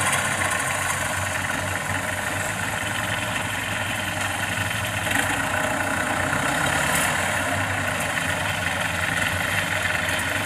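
Engine of a tracked rice carrier loaded with sacks of paddy, running steadily as it crosses a harvested field.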